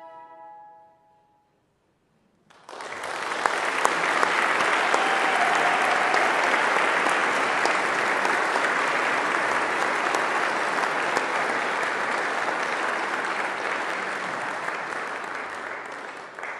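The last held chord of the choir and orchestra fades away, and after a moment of silence an audience breaks into applause, which carries on steadily.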